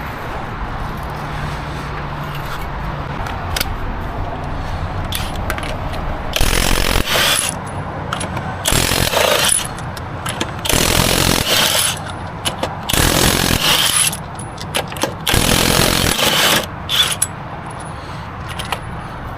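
Impact wrench hammering off the lug nuts of a Honda Odyssey's wheel: five bursts of about a second each, one per nut, with short pauses and small clicks between them.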